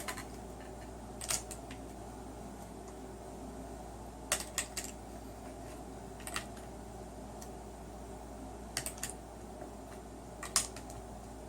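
Brass .223 cartridges being thumbed one at a time into a 30-round Magpul PMAG AR-15 magazine. There are sharp clicks every second or few as each round is pushed down past the feed lips, some in quick pairs or threes, over a faint steady hum.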